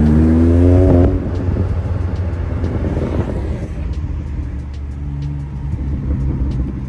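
BMW M4 Competition (F82) twin-turbo straight-six through a DD Customs aftermarket exhaust, accelerating with a rising pitch. About a second in it lifts off into a rough, low rumble with scattered faint pops.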